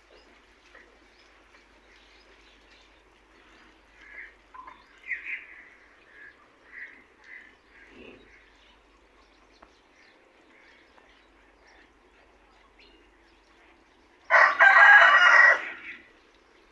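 A rooster crowing once near the end, loud and about a second and a half long. Before it, a run of short bird calls about a second apart.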